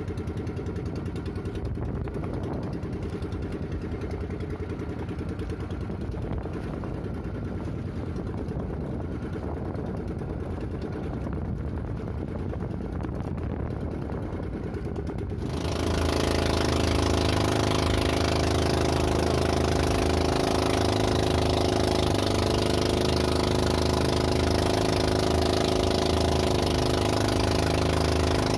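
Small engine of a motorized outrigger fishing boat running steadily at sea. About halfway through the sound jumps suddenly louder and brighter, with a steady engine drone.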